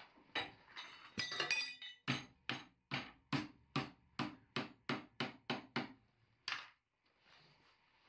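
Hand hammer striking a red-hot steel router plane blade clamped in a vise, bending it over into the cutter's right angle. A few uneven ringing blows come first, then a steady run of about a dozen strikes at two to three a second, and one last blow near the end.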